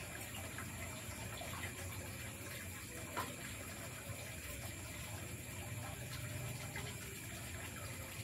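Night forest ambience: a steady hiss with insects droning at several steady high pitches. A single light clink of a spoon on a metal plate about three seconds in.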